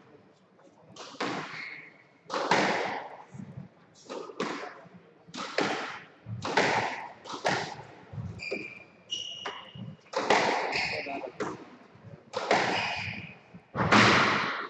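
Squash ball being struck and hitting the court walls: repeated sharp cracks, about one a second, each echoing in the court.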